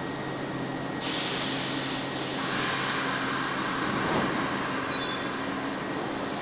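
New York subway train noise in the station: a sudden loud hissing rush of the train along the track starts about a second in and carries on, with faint high wheel squeals near the middle, over a steady low station hum.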